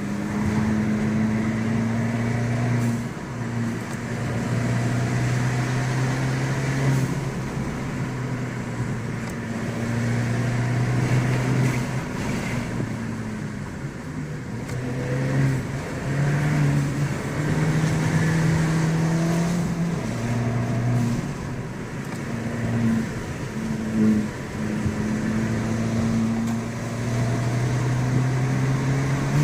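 Abarth 595 Pista's turbocharged 1.4-litre four-cylinder engine accelerating hard through the gears: pitch climbs, drops at each shift and climbs again, with a few brief lifts off the throttle for corners.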